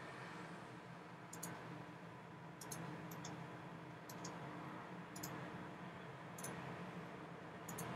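Faint, sharp clicks at irregular intervals, about eight to ten of them, some in quick pairs, over a low steady hum.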